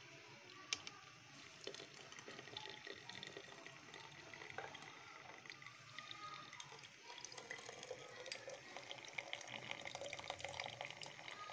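Faint trickling and dripping of brewed kahwa green tea poured through a tea strainer full of leaves into a glass, with a light knock just under a second in. The trickle grows a little louder over the last few seconds as the glass fills.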